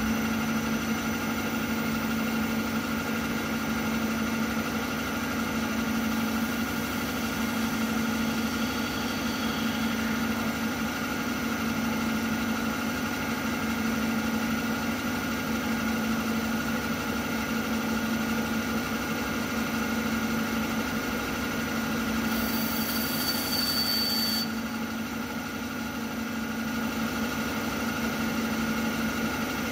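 CNC milling machine spindle running steadily, turning a brass workpiece as a lathe would, with a steady hum and whine. Roughly two-thirds of the way in there is a brief hiss with a thin high tone for about two seconds.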